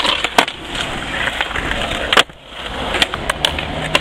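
Skateboard wheels rolling on a concrete plaza, with several sharp wooden clacks of the board popping and landing. The loudest clack comes about two seconds in, followed by a brief break in the sound.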